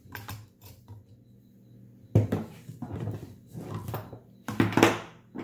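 PVC pipe and nylon cord being handled: a string of short rubbing and knocking noises as the cord is pulled through the pipe, loudest about two seconds in and near the end.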